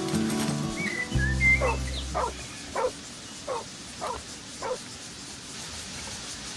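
Acoustic guitar background music dies away in the first second or so. An animal then gives six short calls, evenly spaced about one every half second, over faint outdoor ambience, with a brief high bird chirp near the start.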